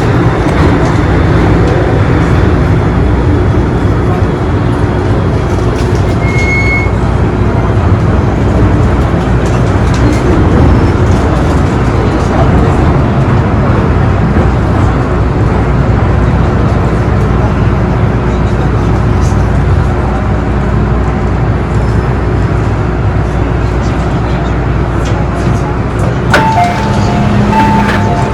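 Onboard noise of an MTR M-train running on the Island Line: a loud, steady rumble of wheels, motors and tunnel air. A couple of brief tones sound near the end.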